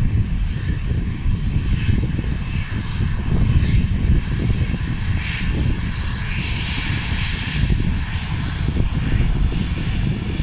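Airliner engine noise: a constant low rumble with a rushing hiss that swells to its loudest just past the middle.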